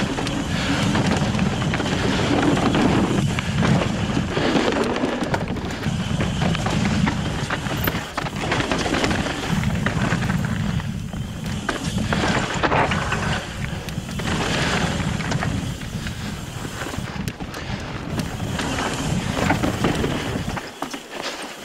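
Mountain bike descending rock slabs: wind buffeting the microphone and tyres rolling over rock, with small rattles from the bike, rising and falling unevenly.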